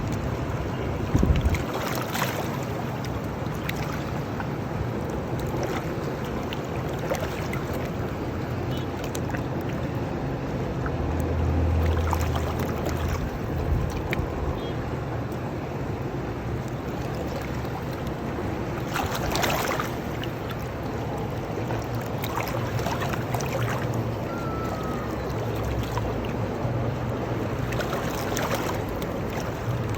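River water washing and lapping steadily, with wind rumbling on the microphone and a few brief louder surges of water.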